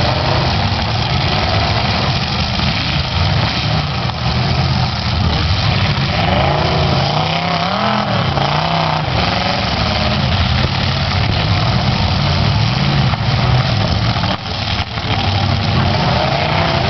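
Several demolition derby cars' engines running together, idling with revs rising and falling, with one engine revving up and down between about six and nine seconds in.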